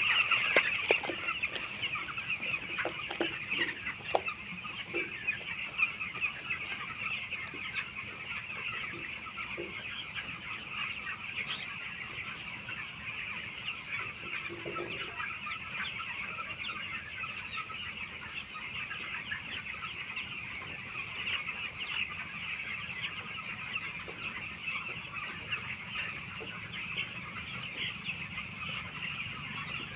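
A large flock of 13-day-old chicks peeping together in a dense, steady chorus of high chirps, with a few short knocks in the first several seconds.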